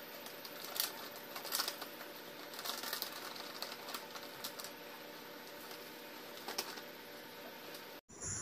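Faint crinkling and light clicks of a plastic sachet of crispy fry breading mix as it is shaken out onto a plate, over a steady low hiss. It cuts off suddenly near the end.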